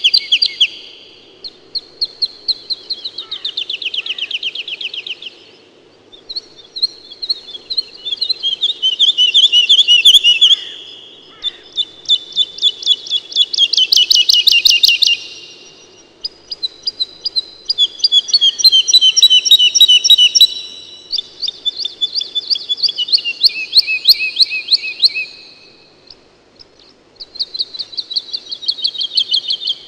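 A swallow singing at close range: loud phrases of rapid twittering trills, each lasting a few seconds, about seven in all with short pauses between.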